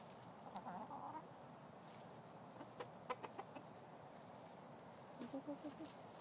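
Chickens clucking softly: one wavering call about half a second in and a run of about five short, low clucks near the end, with a few sharp taps in between.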